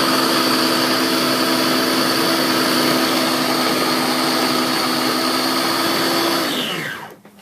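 Freshfoods Cook n Blend baby food maker's blender motor running steadily as it chops steamed butternut squash and peas into a chunky puree, then winding down with a falling pitch and stopping about seven seconds in.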